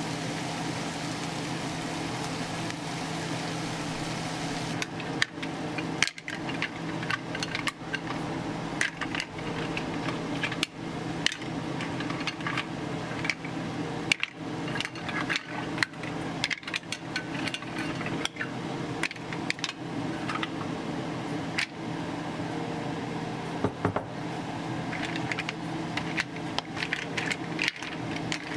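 Onions sizzling in a frying pan. From about five seconds in, mussels in their shells are dropped into the pan and stirred, the shells clicking and knocking against the pan and each other in quick irregular clatters. A steady low hum runs underneath.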